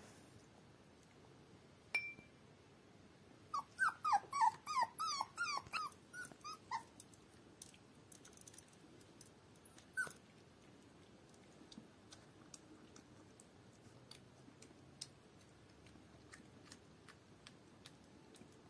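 Young puppy whimpering: a quick run of about a dozen short, high cries about four to seven seconds in, with single cries before and after. Faint small clicks follow.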